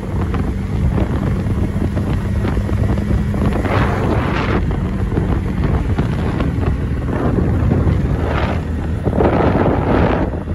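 Motorcycle engine running at steady speed while riding, under heavy wind buffeting on the microphone, with a few louder rushes of wind noise about four seconds in and near the end.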